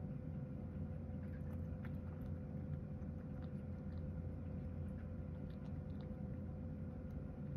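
A cat eating from a bowl: soft, scattered chewing and licking clicks over a steady low hum.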